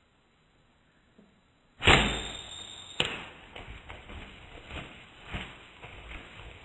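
Bow shot at a wild turkey: a loud sudden thump of the bowstring's release about two seconds in, then a sharp crack a second later and a run of softer, irregular thumps and rustles.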